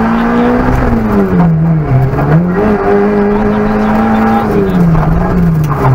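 Peugeot 106 Rallye's four-cylinder petrol engine at speed, heard from inside the cabin. The engine pitch holds high, drops sharply about two seconds in and again around five seconds, picking back up each time, then falls low near the end.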